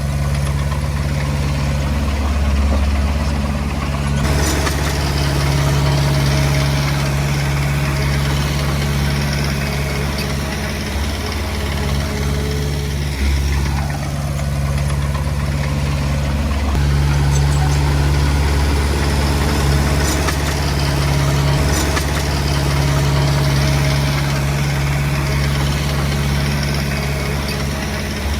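Komatsu D20P crawler bulldozer's diesel engine running, its note and load shifting every few seconds as it works.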